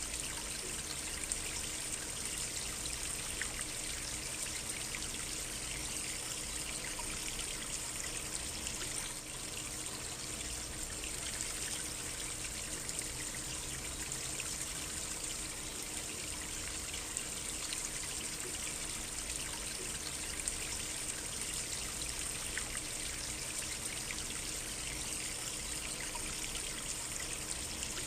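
A small stream trickling steadily, with a constant rush of water and small splashes.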